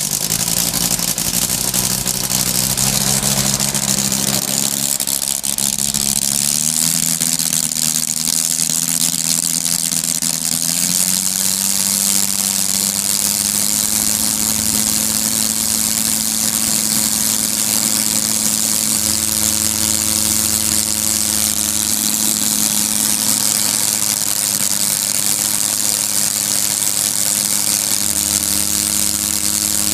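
UML-160 rotary engine running steadily and running fine after an overhaul. Its pitch steps up twice, a few seconds in and again about a third of the way through, then holds, with a strong hiss over the engine note.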